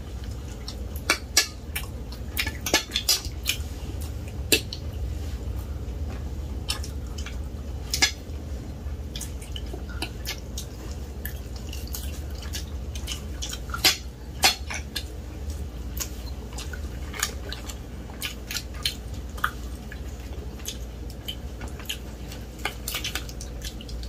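Forks and knives clinking and scraping on ceramic plates, in scattered sharp clicks, over a steady low hum.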